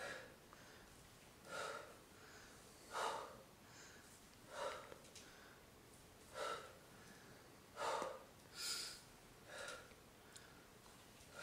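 A woman breathing hard through dumbbell Bulgarian split squats: short, forceful exhalations about every second and a half, in time with the reps.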